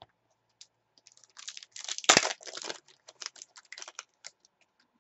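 Trading card pack wrapper being torn open and crinkled by hand: a run of quick rustles and crinkles starting about a second in, loudest just after two seconds, then thinning out.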